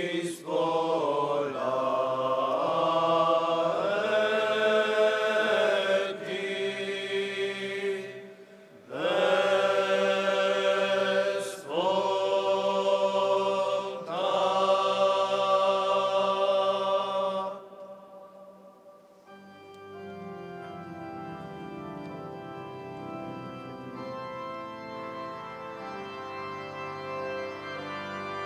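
Liturgical chant sung in four long phrases with short breaks. About two-thirds of the way through, an organ takes over, playing sustained chords.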